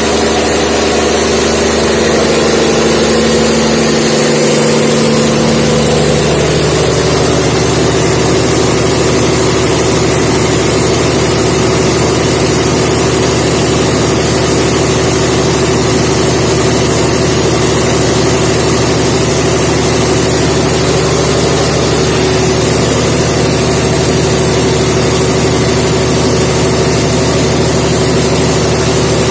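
A 600 kVA diesel generator set running loud and steady; about five seconds in its tone shifts as some of its humming pitches drop away, then it runs on evenly.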